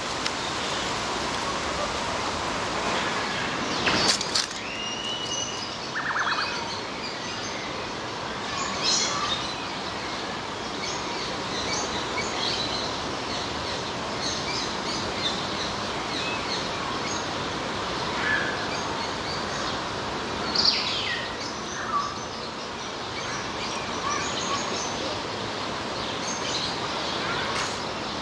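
Birds chirping in short, scattered calls over a steady outdoor hiss, with a brief sharp click about four seconds in.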